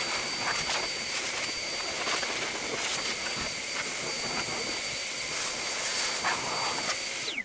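Bruhl motorcycle dryer blower running steadily, pushing air out through its hose to dry a wet motorcycle: a rushing hiss of air with a steady high-pitched motor whine. It cuts off suddenly near the end.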